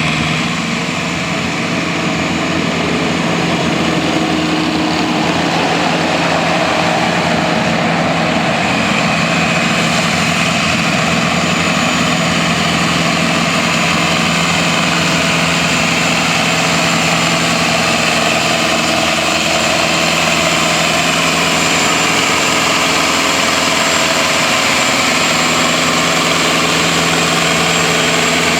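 Tractor engine running steadily at a constant speed, with no revving or change in pitch.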